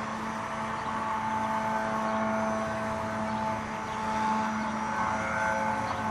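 Walkera 4#3B micro RC helicopter with a brushless motor in flight: a steady whine from the motor and rotor whose higher tones shift a little as the throttle changes. Wind noise on the microphone runs under it.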